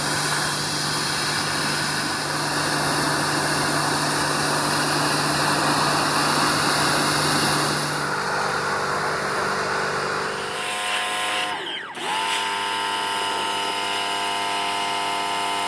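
Pressure washer running: its pump motor hums steadily under the loud hiss of the high-pressure water jet as it blasts grime and loose paint off the van's body panels. About twelve seconds in, the hum drops in pitch briefly and then picks back up.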